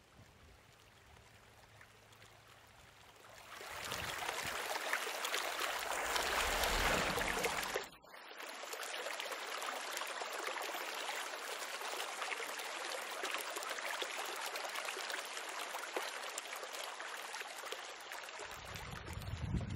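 Fountain water splashing and running, a steady rushing noise that swells about three and a half seconds in, dips for a moment about eight seconds in, then runs on evenly. A low rumble joins near the end.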